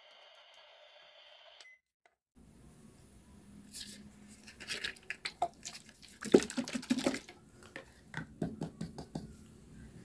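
Hard plastic toy kitchen pieces clicking and knocking as hands handle and set them down, busiest about six to seven seconds in. Before that, a faint steady hiss cuts off just under two seconds in.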